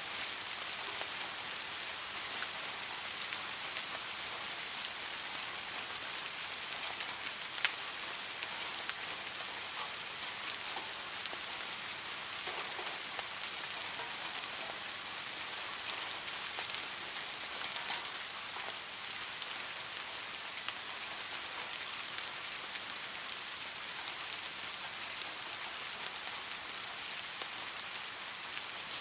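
Steady rain falling: an even hiss with many small drop ticks, one noticeably louder tick about seven and a half seconds in.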